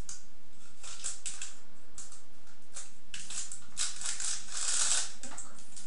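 Small objects being handled by hand on a table, giving a series of short crinkling, rattling rustles. The longest and loudest comes about five seconds in.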